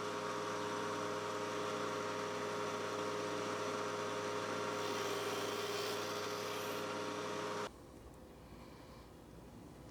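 Electric motor of a shop power tool running steadily with a hum, no cutting heard; it cuts off abruptly near the end, leaving faint room tone.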